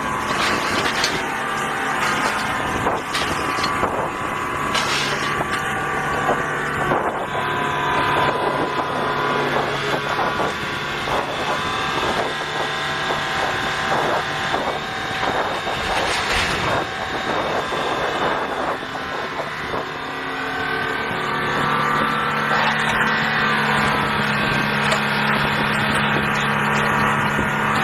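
Diesel engine of a magnet excavator running steadily, with repeated sharp clanks and knocks through the first two-thirds, then mostly the engine alone near the end.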